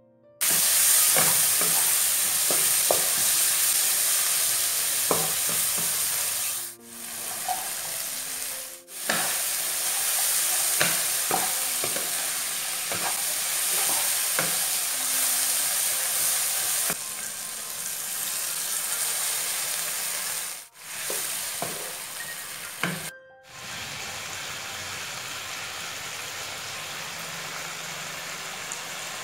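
Tomatoes, spring onion, chilli and fried chicken liver and gizzard sizzling in a hot oiled wok, with a spatula clicking and scraping against the pan as it stirs. About three-quarters of the way through this gives way to a steadier, quieter sizzle as a little added water simmers in the wok.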